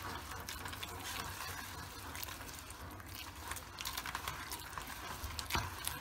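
Gloved hand squishing and mashing a thick mix of tahini, oil, ground walnuts and powdered sugar in a plastic bowl: irregular wet squelching with small clicks, and a sharper tap near the end.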